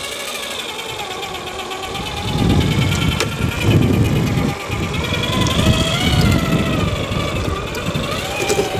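Electric motor and gearbox of a radio-controlled crawler whining, the pitch rising and falling as the throttle changes. A louder low rumble joins about two seconds in.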